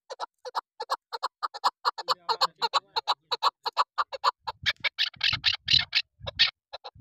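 Chukar partridge calling in a rapid, even series of short chuck notes, about six or seven a second. The notes grow louder and fuller about five seconds in.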